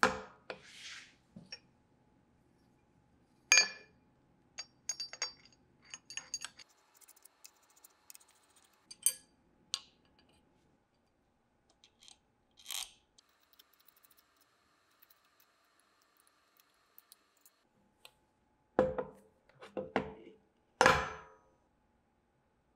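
Metal parts of a three-jaw lathe chuck assembly, the chuck body, an aluminium mounting plate and metal handles, clinking and knocking against a perforated steel table as they are handled and fitted together. Several sharp clinks, some with a short high ring, with three heavier knocks near the end.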